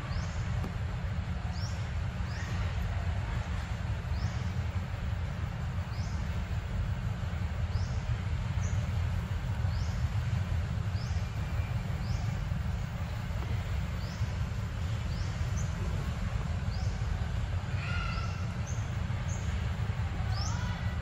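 Forest ambience: a steady low rumble, with a bird repeating a short high chirp roughly once a second and a brief lower call near the end.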